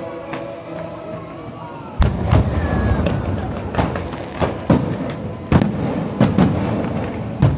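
Fireworks shells bursting. The first loud boom comes about two seconds in, followed by a rapid series of sharp bangs over a continuous rumble.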